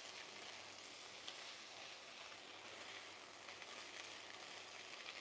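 Sliced onions and bell peppers sizzling faintly in a pot as they sweat: a steady low hiss.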